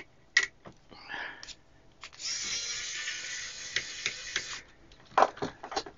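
Pen-style cordless electric screwdriver running for about two and a half seconds, driving out the screw of a multimeter's battery cover. It is framed by a few light plastic clicks, with a quick run of clicks near the end.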